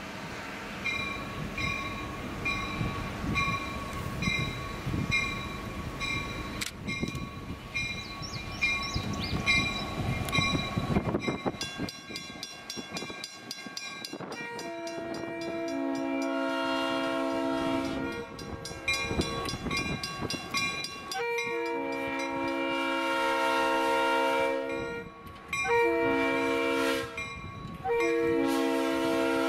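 Diesel switcher locomotive approaching with its bell ringing steadily over the engine's rumble. About halfway through it sounds its air horn in the long-long-short-long grade-crossing pattern.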